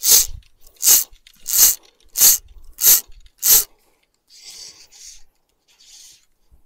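A fly reel's click drag buzzing as line is pulled off it in six quick pulls, about two-thirds of a second apart, followed by a few much fainter hissing swishes.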